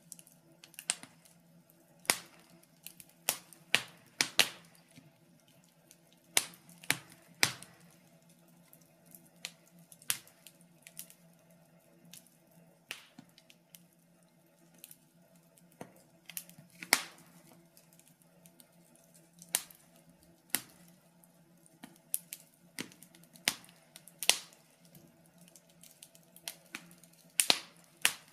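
Wood fire in a fireplace crackling: irregular sharp pops and snaps, a few every couple of seconds, some much louder than others, over a faint steady low hum.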